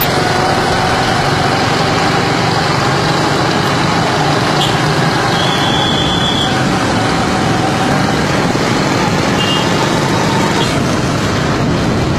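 Steady, loud vehicle and road noise of traffic moving along, with a brief high tone about five seconds in.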